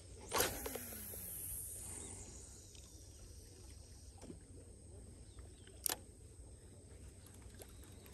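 A spinning-rod cast: a sharp swish as the rod whips forward, then fishing line hissing off the spool of a Shimano Twin Power spinning reel, fading over about a second and a half. A single sharp click comes about six seconds in.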